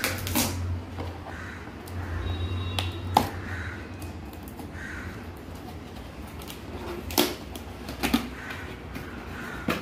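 Cardboard laptop box being handled and opened: scattered taps, scrapes and knocks of cardboard flaps and packing, the sharpest knock about three seconds in and several more in the last three seconds.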